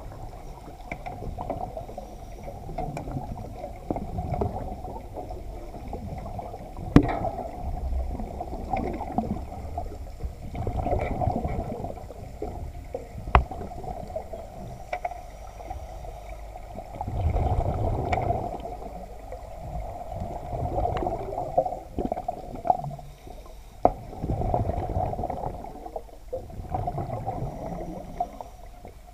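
Underwater water noise heard inside a shark-diving cage: muffled sloshing and bubbling that swells and fades every few seconds. Two sharp knocks stand out, one about 7 seconds in and one about 13 seconds in.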